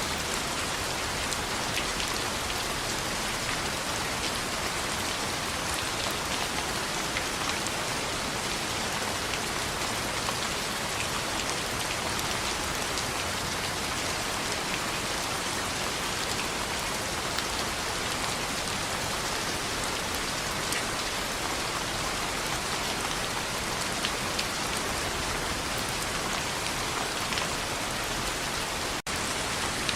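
Steady rain on a window: a dense, even hiss with scattered small drop taps, cutting out for an instant about a second before the end.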